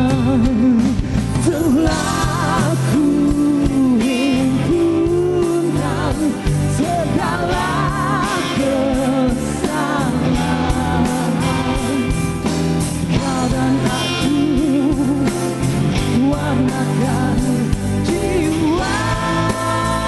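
A band playing a Malay pop-rock song, with a singer's melody full of vibrato over steady accompaniment; near the end the voice gives way to a sustained chord.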